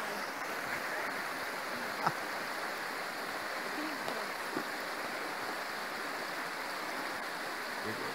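Steady rush of a fast, shallow river running over rocks, with one sharp click about two seconds in.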